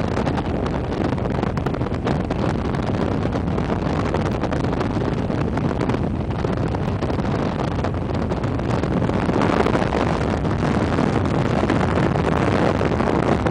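Steady wind and road noise from a car driving along, with wind buffeting the microphone.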